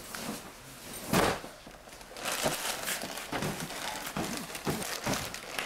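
Scuffling and cloth rustling, with one heavy thump about a second in, then irregular rustles and small knocks.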